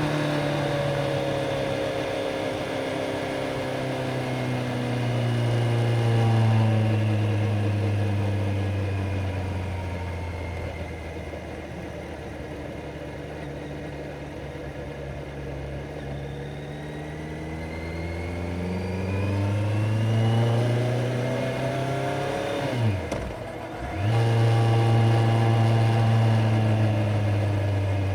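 Kawasaki Z900's inline-four engine under way while riding. The revs fall away slowly, hold low for a while, then climb again. A short break in the sound comes about three-quarters through, and after it the engine runs steadily at higher revs.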